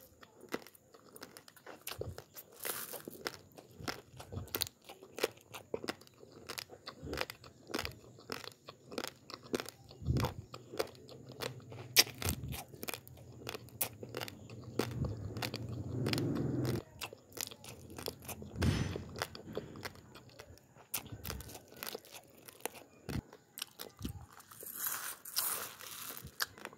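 Raw basmati rice being chewed: many sharp, crisp crunches in quick, uneven succession. There is a brief dry rustle near the end.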